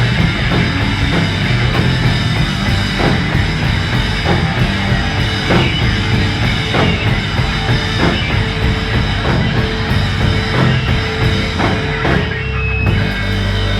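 Live rock band playing loud and heavy: pounding drums under thick, distorted bass and guitar, recorded on a phone. About twelve seconds in the drum hits break off and held notes drone on.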